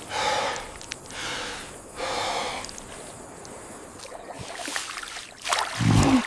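Three heavy, breathy snorts or gasps in the first few seconds. Near the end a loud, deep growl starts.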